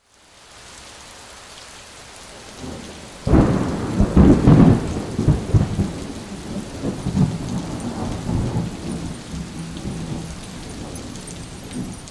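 Steady rain, then a thunderclap about three seconds in that rumbles on for several seconds and slowly dies away.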